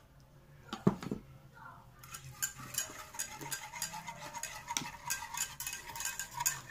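Wire balloon whisk stirring thin coconut milk in a saucepan. Two knocks come about a second in. From about two seconds in, the metal wires tick quickly and continuously against the pan's sides and bottom.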